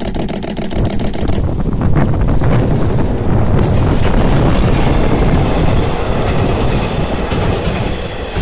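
An EF81 electric locomotive hauling four KiHa 48 railcars passing on the track: a steady rush of running gear and wheels on rail that grows loud about three seconds in as the train draws level, and carries on as the cars roll by.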